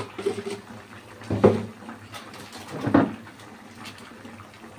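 Shrimp and squid in Padang sauce simmering in a wok, a low bubbling over a steady hum, with two brief knocks about a second and a half and three seconds in.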